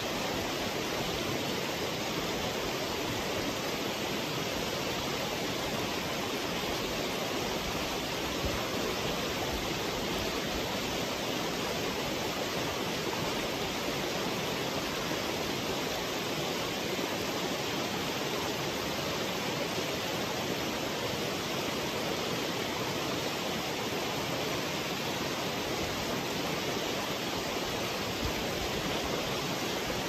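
Steady rushing of running water, an even unbroken noise that does not change.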